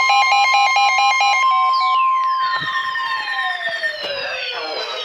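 Emergency alert warning tones: a steady high attention tone with a fast-pulsing beeping alarm over it. The beeping stops about a second and a half in, and the steady tone a couple of seconds later. Through the second half, several tones glide downward together like a siren winding down.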